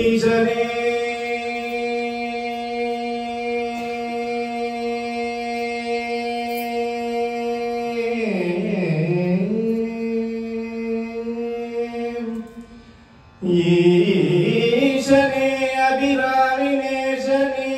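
A man singing a Carnatic devotional song into a microphone. He holds one long note for about twelve seconds, bending it down and back up partway through, then pauses briefly and starts a new, louder phrase.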